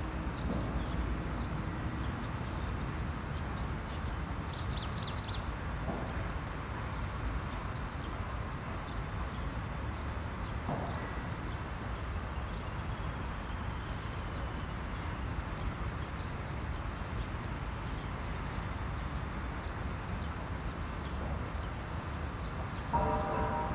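Steady low background rumble with short high chirps scattered through, and a brief pitched call just before the end.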